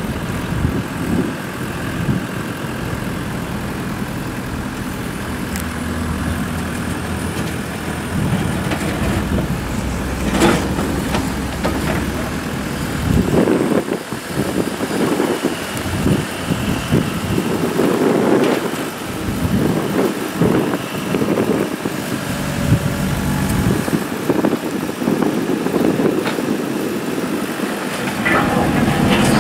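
2012 New Holland C232 skid steer's diesel engine running at idle, steady at first, with more uneven, louder noise over it from about halfway through.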